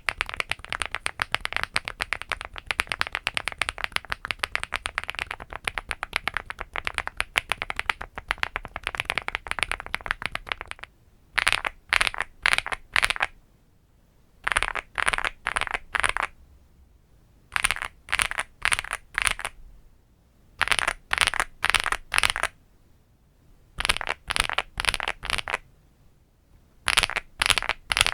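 Typing on a LEOBOG Hi8 aluminium mechanical keyboard, first with HMX Pado V2 and then with BSUN Owlab London Fog linear switches, as fast continuous keystrokes. About eleven seconds in, the typing turns into short clusters of about four sharp keystrokes each, the home-row keys 'asdf jkl;', with brief pauses between clusters.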